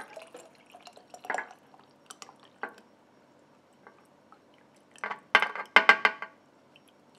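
Bacon grease poured from a metal tray into a glass jar: dripping and trickling, with sharp clinks now and then as the tray's edge knocks against the jar rim. The clinks come as a quick, louder run about five to six seconds in.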